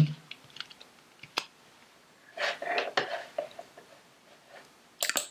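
Computer mouse and keyboard clicks and taps, scattered and light, with a sharper pair of clicks near the end. A short muffled noise comes about halfway through.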